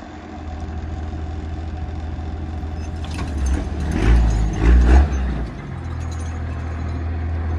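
Pickup truck engine running steadily, with a louder low rumble in two swells between about three and a half and five and a half seconds in.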